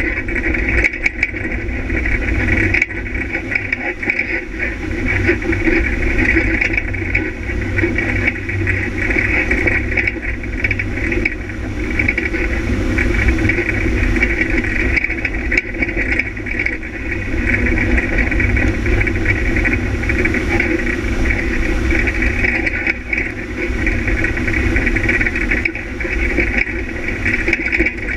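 Onboard sound of an off-road rally vehicle driving fast over a rutted dirt track: the engine runs under load with a constant rattling from the rough ground, easing off briefly a few times.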